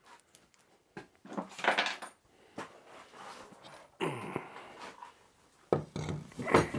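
Heavy 5-inch milling machine vise being lifted off its swivel base: a series of metal clunks, scrapes and clinks, the sharpest about four seconds in and more near the end.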